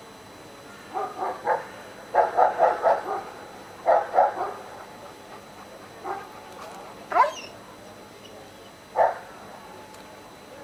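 Dog barking in short runs of quick barks several times, with single barks between them.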